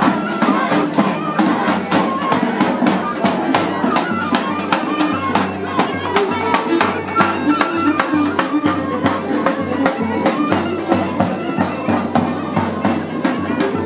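Georgian folk band playing on the march: a bagpipe's droning melody over a steady beat on a large double-headed drum.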